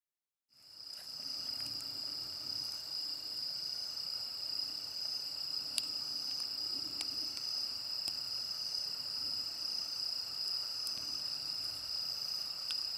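Crickets in a steady, continuous high-pitched chorus that starts about half a second in, with a few faint clicks over it.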